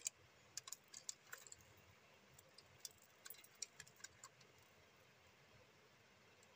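Small irregular clicks and taps of a plastic rechargeable torch being turned over and handled, in the first four seconds or so, then near quiet.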